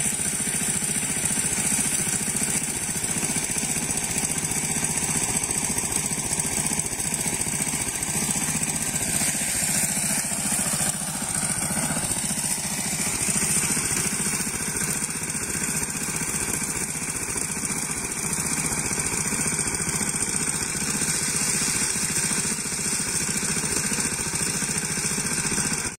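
Small engine of a rice threshing machine running steadily.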